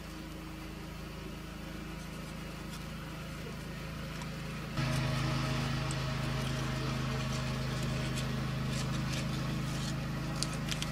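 A steady machine hum that steps up in level about five seconds in, with faint crinkling of the heat-resistant paper wrapping as it is peeled open from a ceramic heating element, mostly in the second half.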